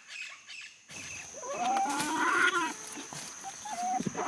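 A long animal call that rises and then falls in pitch, followed by a few shorter calls near the end, over a steady high-pitched whine that starts about a second in.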